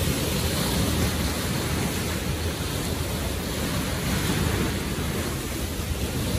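Sea waves breaking and washing over shoreline rocks, a steady rushing noise under a low rumble of wind buffeting the microphone.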